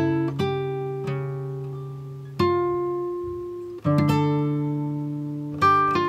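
Background music of slow plucked-string chords, each struck and left to ring out and fade before the next.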